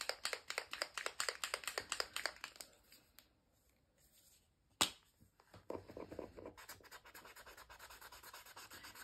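Posca acrylic paint marker being shaken, its mixing ball rattling about six times a second for the first couple of seconds. After a pause comes a single sharp click, then the marker's nib scribbling a swatch onto sketchbook paper with a steady scratchy rubbing.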